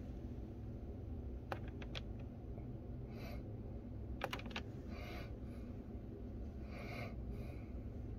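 Buttons on an Egro One espresso machine's keypad being pressed by a fingertip: a few quick clicks about a second and a half in and a tight cluster of clicks just past four seconds, over a low steady hum.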